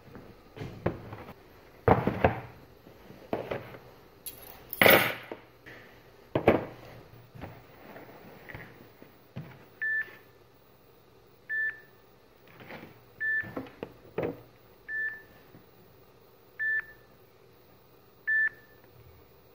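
Cardboard pizza box and plastic-windowed toy box being handled, with irregular knocks and rustles. Then, about halfway through, a smartphone rings for an incoming call: six short beeps about every second and a half.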